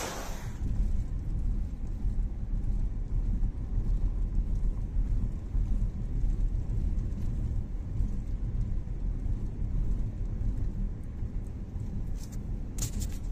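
Car driving at speed along a road, heard from inside: a low, uneven rumble of road and wind noise. A couple of short clicks come near the end.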